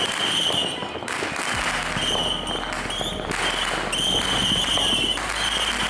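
Many fireworks and firecrackers going off at once: a dense, continuous run of rapid crackling pops.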